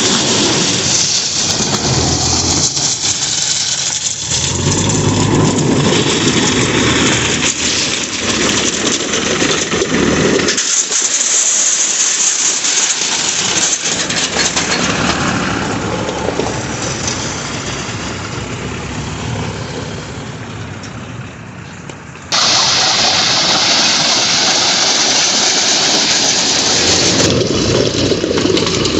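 Diesel engines of a JCB backhoe loader and a farm tractor running, the sound changing abruptly about ten and twenty-two seconds in.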